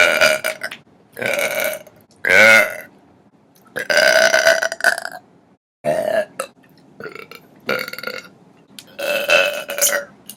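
A girl burping loudly, a run of about eight separate burps of varying length with short gaps between them; the longest, about a second and a quarter, comes around four seconds in.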